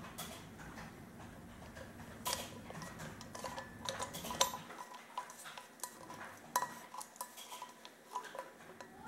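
Brass threaded socket of a wooden cezve handle being screwed onto the threaded stud of a copper Turkish coffee pot: irregular metallic clicks and scrapes, more frequent from about two seconds in, with a faint ringing tone between them.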